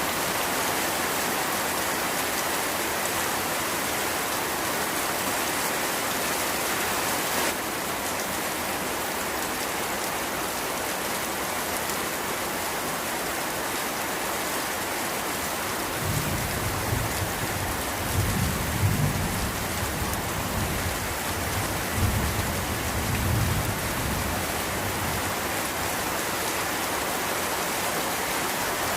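Steady rain falling, with a low thunder rumble rolling in about halfway through, swelling twice and fading after several seconds. The hiss of the rain changes abruptly about seven seconds in.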